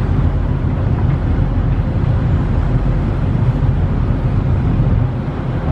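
Steady low engine rumble of a ship underway, with wind buffeting the microphone.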